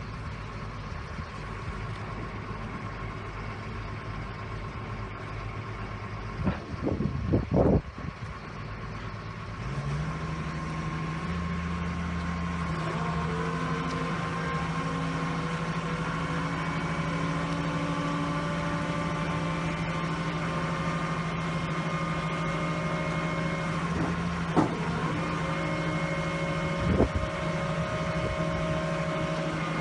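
Soilmec R-312 piling rig's diesel engine running, stepping up to a higher, steady engine speed about ten seconds in. A cluster of loud knocks comes at about seven seconds, and two more single sharp knocks near the end.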